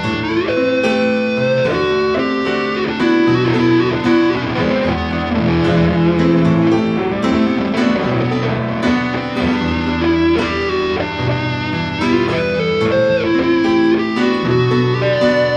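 Electric guitar playing a sustained lead solo with bent notes, over piano accompaniment.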